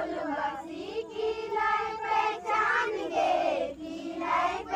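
A group of girls and young women singing a Karam folk song together, one melody line carried by many voices with short breaks between phrases.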